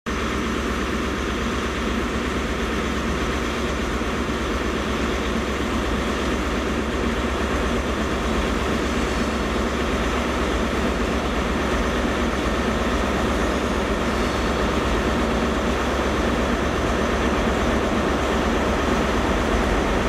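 Double-headed diesel freight train, a Class 60 locomotive leading with a Class 66 behind, running slowly: a steady engine and wheel noise that grows slightly louder as it approaches.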